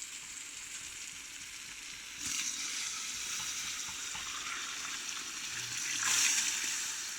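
Food sizzling and frying in a large cooking pot: a steady hiss that gets louder about two seconds in and swells again near the end.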